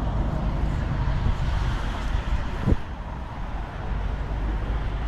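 Steady low rumble of outdoor background noise with no clear engine note, and a single sharp knock a little past halfway.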